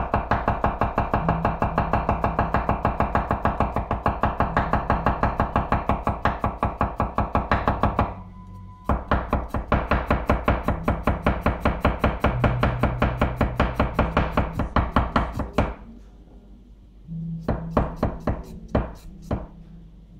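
Yoshiaki Fujiwara 240 mm gyuto slicing a carrot into thin rounds on a wooden cutting board: quick, even knocks of the blade on the board, about five a second. They come in two long runs with a short break about eight seconds in, then a few scattered cuts near the end.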